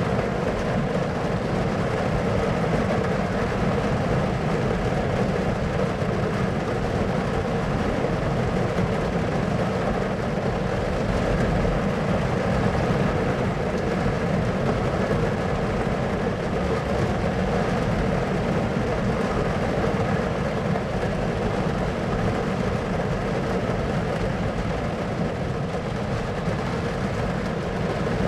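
Thunderstorm ambience played as white noise: a steady, unbroken low rumbling noise with no distinct thunderclaps.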